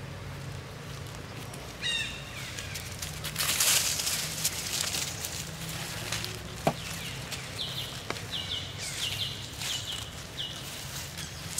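Dry leaf litter rustling and crackling as two young macaques wrestle on it, loudest around four seconds in. A rising high chirp sounds about two seconds in, and a row of about five short high chirps follows in the second half.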